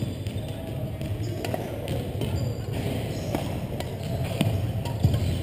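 Badminton play on a wooden gym court: a few sharp racket hits and thuds of feet on the floor, ringing on in the large hall over a steady low hum.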